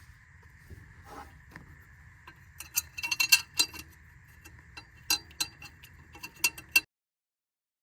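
Light metallic clicks and clinks of bolts and a sheet-metal heat shield being handled and fitted by hand, in a quick irregular run that starts about two and a half seconds in and stops abruptly about seven seconds in.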